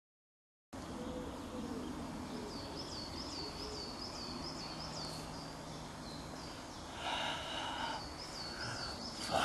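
Animal calls against a background hiss: low hooting calls under rows of short, quickly repeated high chirps, starting after a moment of silence. A burst of hissing noise comes in about seven seconds in.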